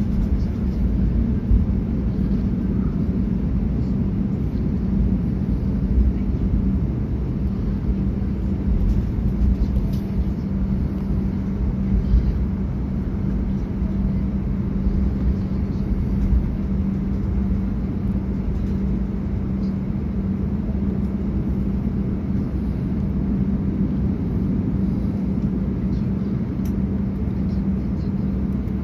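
Cabin noise of an airliner taxiing with its jet engines at idle: a steady low rumble with a constant hum, and a few faint ticks.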